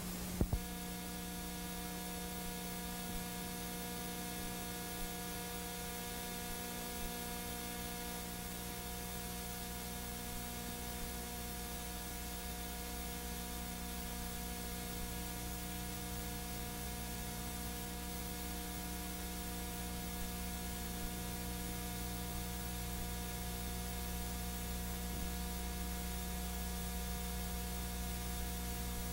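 Steady electrical mains hum with a faint hiss, the noise floor of an old videotape's audio track on a blank stretch between programme segments, with a few faint ticks.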